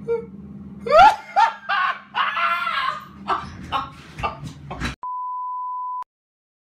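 Voices laughing and shrieking in loud bursts, then a steady beep at one pitch lasting about a second.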